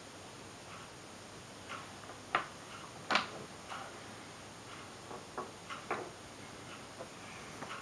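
Wooden jigsaw puzzle pieces being handled: scattered light clicks and taps as the pieces knock against each other and the tabletop, the loudest about three seconds in.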